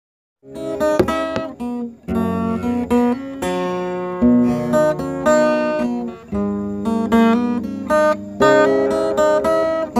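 Intro music of strummed acoustic guitar chords, starting about half a second in.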